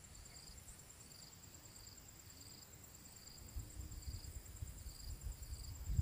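Insects chirping: a steady high trill, with short chirps repeating about twice a second over it. A faint low rumble comes in about halfway through.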